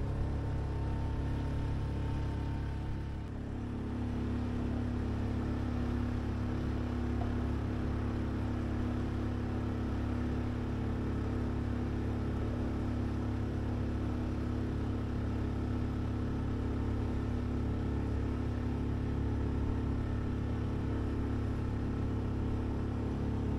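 Small sailboat's motor running steadily under way, a steady low drone with a brief dip in level and a change in pitch about three seconds in.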